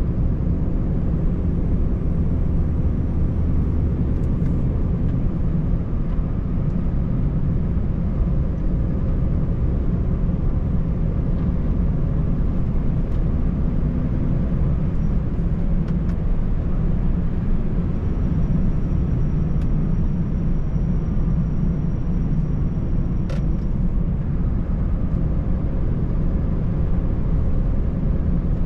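Scania 590S truck's V8 diesel engine and tyre noise heard from inside the cab: a steady low drone while driving at an even pace.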